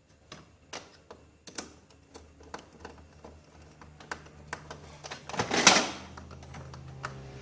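Scattered light clicks and taps of plastic printer parts being handled and fitted during reassembly, with one louder scrape about five and a half seconds in.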